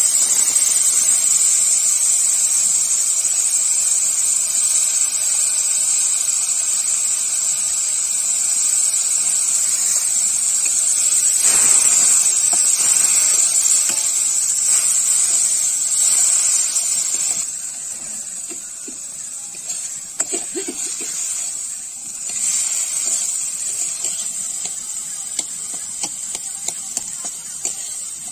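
Boiled potato pieces and pulses sizzling in hot oil in an iron wok, a steady loud hiss, with the clicks and scrapes of a steel spatula stirring them. The sizzle eases off somewhat about two-thirds of the way through.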